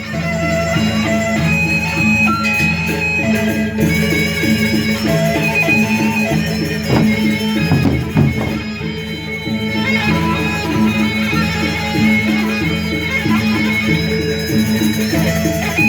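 Traditional Indonesian instrumental ensemble music, a 'tabuh' opening piece: fast, evenly repeating beaten strokes under sustained melodic lines.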